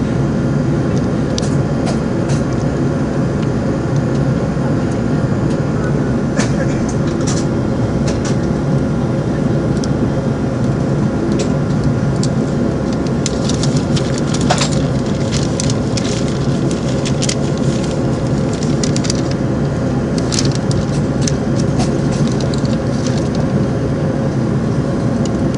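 Steady airliner cabin noise while holding for take-off: an even hum from the idling engines and the cabin air system, with scattered light clicks and rattles.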